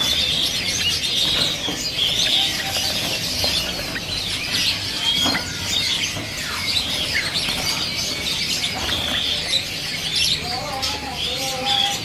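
A crowded cage of sooty-headed bulbuls fluttering and flapping their wings, amid constant high chirping of caged birds.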